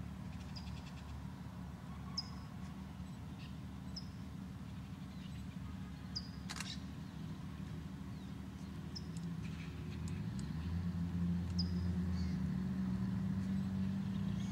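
Engine of a small rail motor car running as it approaches along the track, a low drone that grows louder over the last few seconds. Short high bird chirps repeat above it every few seconds.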